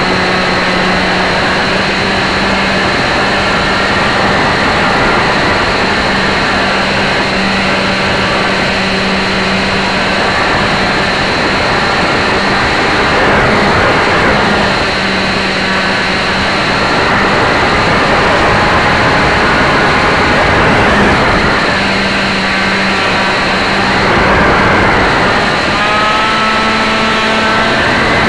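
Electric motor and propeller of an AXN Clouds Fly Floater RC plane in flight, heard from a camera on its nose: a steady motor whine under a rushing noise of wind on the microphone. The motor's pitch rises and falls several times, most clearly near the end.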